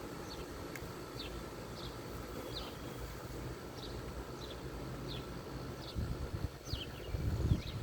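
Panasonic window air conditioner running on high fan: a quiet, steady hum, barely audible. Short, falling bird-like chirps repeat about twice a second over it, with some low rumbling near the end.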